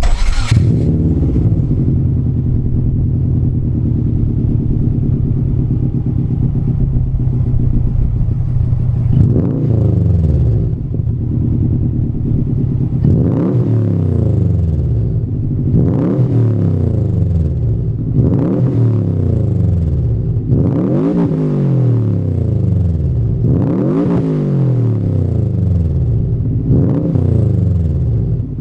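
Subaru Impreza WRX's EJ20 turbocharged flat-four with unequal-length headers, breathing through a BE FREE cannonball-type aftermarket muffler. After a short loud burst at the very start it idles steadily with its uneven boxer burble. From about nine seconds in it is blipped about seven times, each rev rising quickly and falling back to idle.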